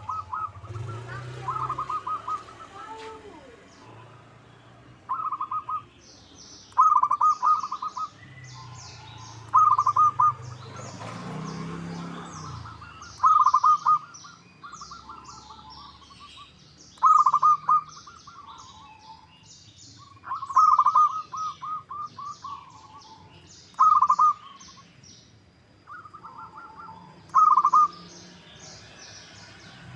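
Zebra doves cooing: short, loud trilled phrases, one every one to three seconds. Fainter high-pitched chirps of small birds run over them for much of the time.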